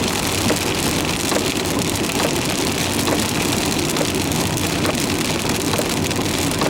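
Rain hitting a moving car's windscreen, heard from inside the car: many small drop ticks over the steady hiss of tyres on the wet road.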